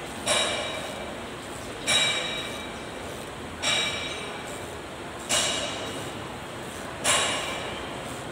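A steel wrench clinking against metal five times, about every one and a half to two seconds, as a bolt on a tractor's axle housing is turned by hand. Each clink rings briefly and fades.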